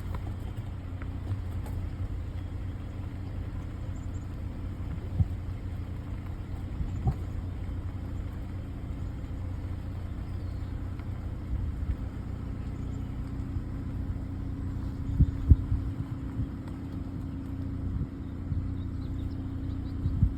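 Car engine running with a steady low rumble and hum, with a few short thumps along the way.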